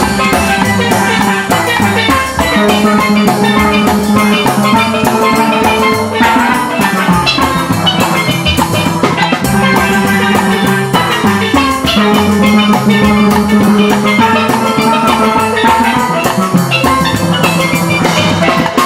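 A steel band playing, with steelpans carrying the melody over a drum kit, in a continuous stream of quick struck notes.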